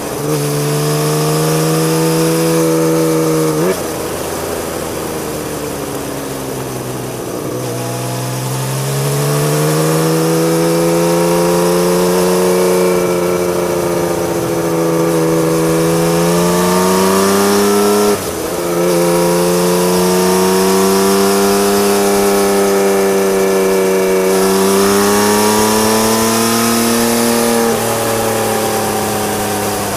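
Honda CBX1000's 1047 cc inline-six engine through a loud modified Marving exhaust, heard from on the bike. Revs fall away about four seconds in as the throttle eases, then climb in long pulls, broken twice later by gear changes where the pitch drops sharply before rising again.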